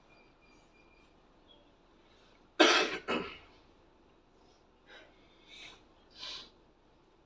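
A person coughing twice in quick succession, loud and sharp, about two and a half seconds in, then three short, softer coughing sounds near the end, over a quiet room hush.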